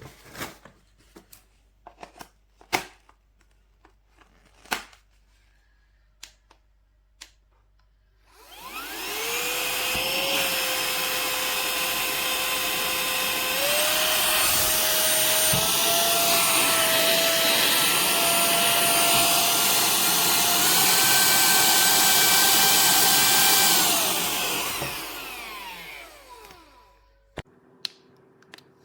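Light clicks and knocks from handling, then, about a third of the way in, a cordless handheld vacuum cleaner switches on. Its motor spins up with a rising whine, runs steadily with a whine that steps up in pitch a few times, and winds down near the end.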